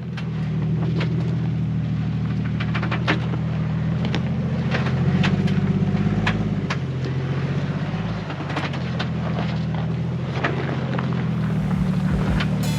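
Jeep Wrangler engine pulling at low, steady revs along a rough dirt trail, picking up a little about five seconds in and easing off a few seconds later. Frequent clicks and knocks come from rocks, bumps and rattling parts as it drives.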